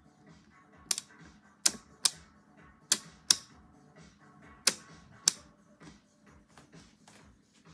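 A series of about eight sharp, hard clicks or taps, loosely in pairs, over faint background music.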